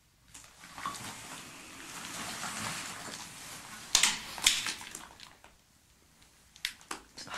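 Footsteps scuffing and crunching on loose debris on stone cellar stairs, with clothing rustle. Two sharp crunching steps come about four seconds in, and a few more knocks near the end.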